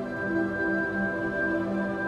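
Soft ambient background music of long held notes, with a high note coming in at the start and sustained.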